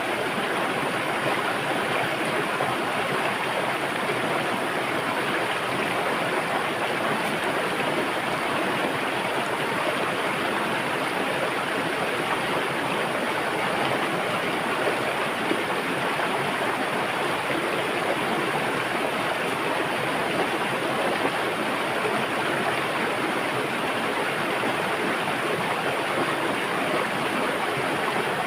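River water flowing and splashing over stones, a steady, even rush with no change.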